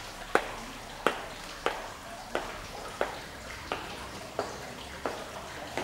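High-heeled shoes clicking on a tiled floor in a steady walk, about nine even steps with a short echo after each, growing fainter as the walker moves away.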